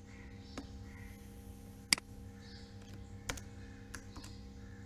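Scattered clicks of a computer keyboard and mouse during code editing, about five spread across the few seconds, the loudest about two seconds in, over a faint steady hum.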